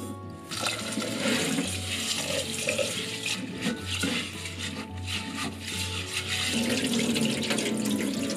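Tap water running and splashing into an earthenware rice pot in a stainless steel sink while a hand swirls and rubs the rice grains to wash them; near the end the cloudy rinse water is poured off into the sink.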